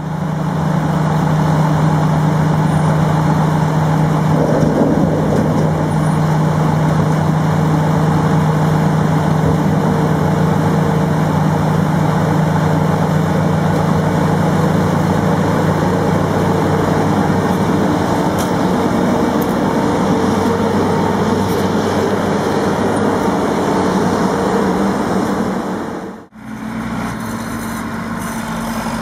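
Heavy diesel engine of harvest machinery running steadily at a constant speed. Near the end the sound drops out for a moment and a different engine carries on at a steady note.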